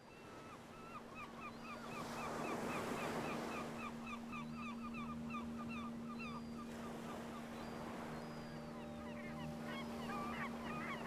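A flock of gulls calling in quick runs of short, repeated notes over a steady low hum. The sound fades in over the first couple of seconds.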